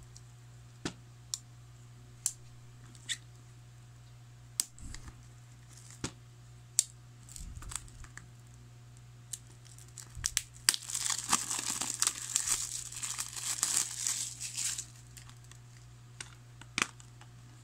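Plastic shrink wrap on a Blu-ray case being opened: a few scattered clicks and taps, then about four seconds of the wrap crinkling and tearing as it is peeled off. A steady low hum runs underneath.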